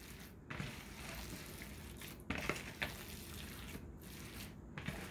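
Faint wet squishing of raw ground-beef meatloaf mixture being kneaded by hand in a plastic bowl, with a few light knocks.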